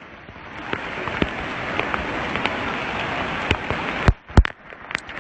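Heavy rain falling: a dense, steady hiss with many small sharp drop ticks. About four seconds in it breaks off briefly with a couple of loud clicks.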